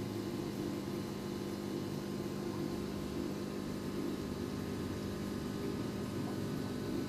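Steady low hum with a hiss over it, unchanging throughout: the running of aquarium equipment, such as the air pump driving the tank's sponge filter.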